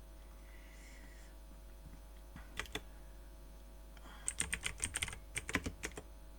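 Keys typed on a computer keyboard: a couple of clicks, then a quick run of keystrokes lasting about a second and a half.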